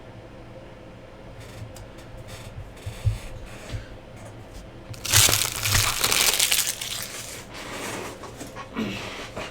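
Trading card pack wrappers being crinkled and crumpled by hand, with light clicks of cards and packaging being handled. The loudest crumpling starts about five seconds in and lasts around two seconds.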